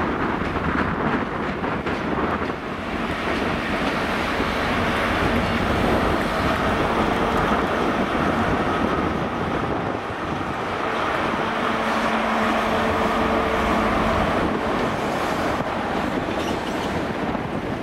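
A GWR High Speed Train's Class 43 diesel power car and coaches rolling past at close range: a steady rumble of engine and wheels on rail, with a low engine hum rising and fading as the power car goes by.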